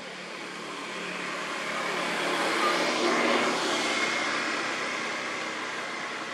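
A vehicle passing by: a rushing noise that swells to its loudest about three seconds in, then fades away.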